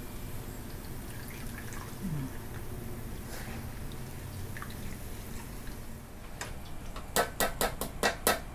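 Fried garlic being lifted out of oil in an aluminium wok with a mesh strainer and ladle; the oil drips and ticks faintly, with no sizzle. Near the end comes a quick run of sharp metallic clicks as the strainer and utensils knock against the wok.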